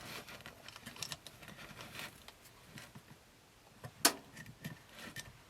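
Small clicks and light scraping of a screwdriver working on the plastic cassette-door mechanism while grease is wiped round its pivot pin, with one sharp click about four seconds in.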